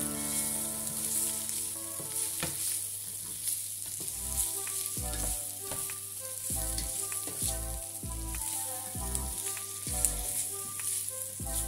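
Diced peppers, zucchini and onion sizzling in oil in a frying pan as they are stirred with a spatula. Background music with a steady beat from about four seconds in.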